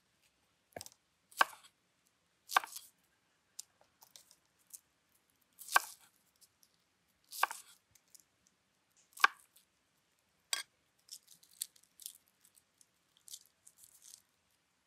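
Large knife chopping small onions on a wooden cutting board, with single sharp strikes a second or two apart. About eleven seconds in, these give way to soft crackling as onion skin is peeled by hand.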